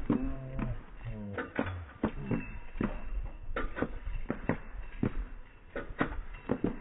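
Horse's hooves clopping on a paved lane as it pulls a cart at speed, a string of sharp knocks with the harness and cart rattling along. A few short low hums come in the first two seconds or so.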